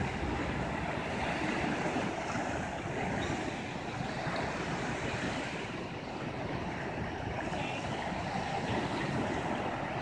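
Gentle sea waves washing steadily against the shore and pier, with wind rumbling on the microphone.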